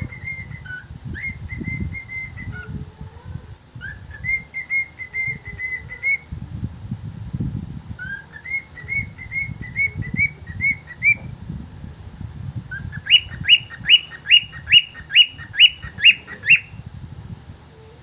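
Cockatiel whistling a tune in short phrases of clear notes, ending with a run of about ten louder, quick rising whistles. A low rumble sits underneath.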